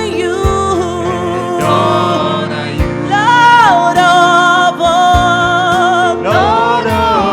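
Gospel worship song: a singer holding long wavering notes over a band, with occasional drum hits.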